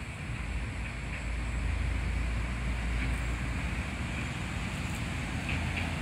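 Wind rumbling on the microphone over a steady hiss of outdoor background noise.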